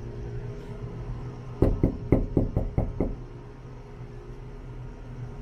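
A quick run of about eight knocks on a door, starting about a second and a half in and lasting about a second and a half.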